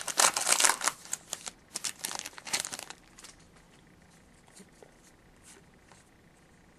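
Hockey trading-card pack wrapper crinkling and tearing as it is ripped open, dense for about three seconds, then only faint light clicks.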